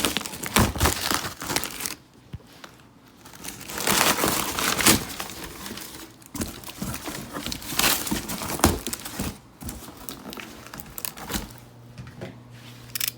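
Crinkling packaging being handled and unwrapped from a shoe box, in irregular bursts with a quieter pause about two seconds in.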